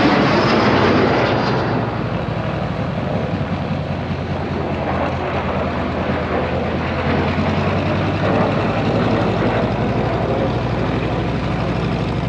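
Piston-engined propeller aircraft running, a steady engine drone with propeller noise. It is loudest at the start and eases to a lower, even level after about two seconds.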